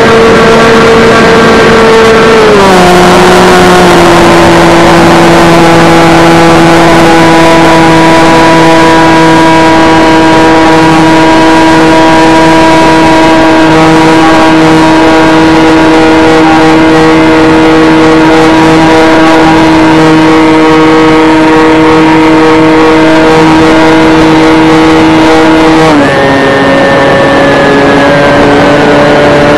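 Electric motor and propeller of an FPV model plane heard from its onboard camera: a steady, loud whine over a rush of air. Its pitch drops about two and a half seconds in, holds level, and shifts again near the end.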